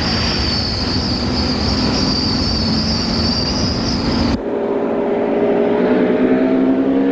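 School bus engine and road rumble heard from inside the cab as the bus runs up to speed, with a steady high whine over it. About four seconds in, the sound cuts abruptly to a vehicle engine running with a steady tone that slowly rises in pitch.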